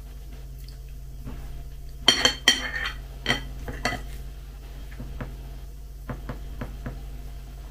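A metal spoon clinks and scrapes against a ceramic bowl while scooping soaked cereal flakes. The louder clinks come in a cluster about two to four seconds in, with a few lighter taps near the end, all over a low steady hum.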